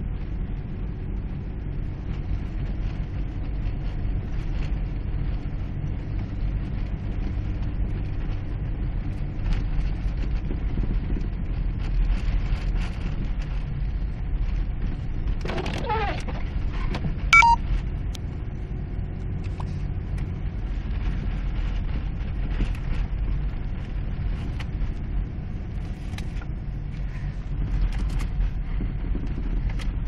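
Steady low rumble of a vehicle driving slowly through deep snow, heard from inside the cabin. About halfway through, a windshield wiper sweeps across the glass with a brief sliding squeak, followed about a second later by a sharp click.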